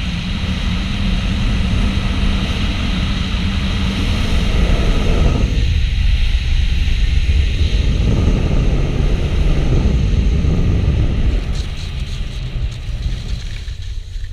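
Rushing wind buffeting an action camera's microphone during a fast tandem speed-riding flight, strongest in the middle and easing off in the last few seconds, with a few faint clicks near the end.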